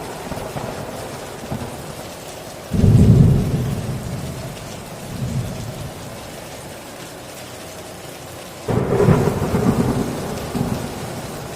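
Heavy rain drumming on a tin roof, with thunder rumbling twice: a sudden deep rumble about three seconds in, and another near the end.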